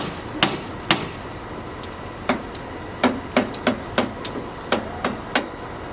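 Hammer blows on a building site: about a dozen sharp, irregularly spaced strikes, some coming in quick runs of two or three.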